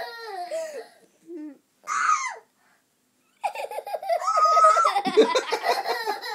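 Laughter with a toddler's high giggles and squeals: a short burst about two seconds in, a brief pause, then hard continuous laughing from about halfway, with one held high squeal.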